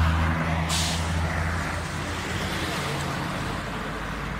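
Road vehicle running, a steady low engine drone with road noise that eases off over the first couple of seconds, and a brief hiss about a second in.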